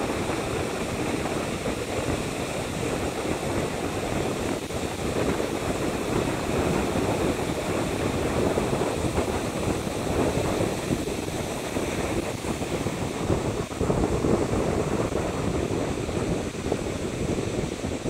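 Ocean surf breaking and washing up the beach in a steady roar, with wind buffeting the microphone.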